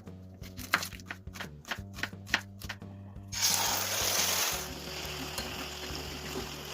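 Food going into hot oil in a pan: a loud sizzle starts suddenly about halfway through, eases after a second and settles into a steady frying sizzle. Background music plays throughout, with a few sharp clicks before the sizzle.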